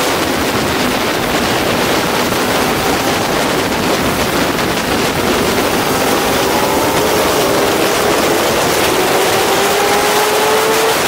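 Honda CBR600RR inline-four sport bike engine at speed on track, heard on board under a heavy rush of wind noise; from about halfway through, its note climbs slowly as the bike accelerates.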